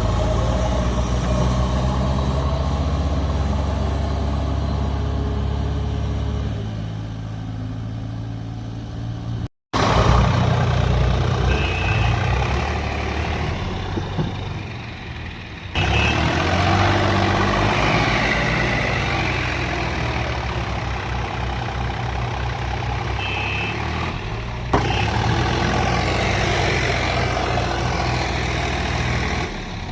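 Heavy diesel engines running steadily, with abrupt jumps in sound about 10, 16 and 25 seconds in where the footage is cut together.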